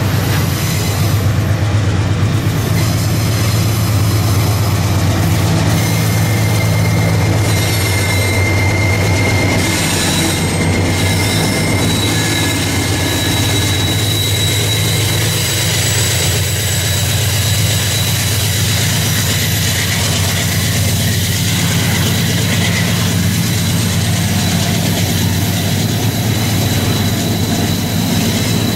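Long freight train of loaded hopper wagons rolling past, with the deep steady running of a mid-train diesel-electric locomotive and the rumble of wheels on rail. A thin high wheel squeal rings over it, typical of steel wheels grinding through a curve.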